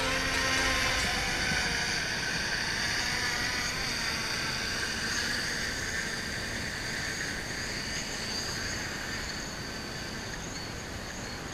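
DJI Mavic Pro quadcopter's propellers whining steadily as it hovers in and sets down, over a steady hiss, the whole sound slowly getting quieter.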